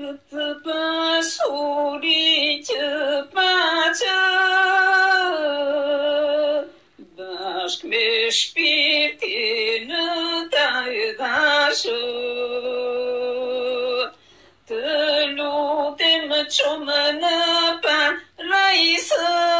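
A single voice singing a slow melody, holding long wavering notes. The phrases are broken by two short pauses with nothing else heard in them.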